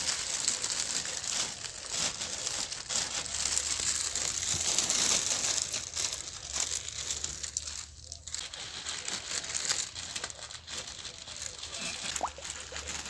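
Clear polythene bag crinkling and rustling as damp straw is stuffed into it by hand. The crackling is busiest in the first half and thins out after about eight seconds.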